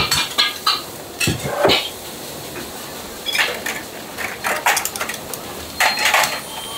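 Kitchen clatter: irregular clinks and knocks of bowls and metal utensils being handled, with a cluster of clanks near the end as a steel noodle strainer is worked over the steaming pot.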